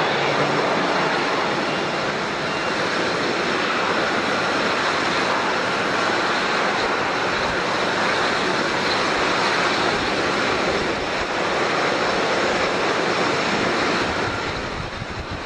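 Airliner engines running loud and close, a steady rush of engine noise with a faint high whine, easing off near the end as the aircraft moves away.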